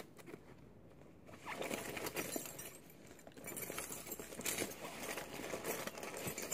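Hands rummaging inside a zipped sling-bag compartment: fabric rustling with many light clicks and clinks of small items, starting about a second and a half in.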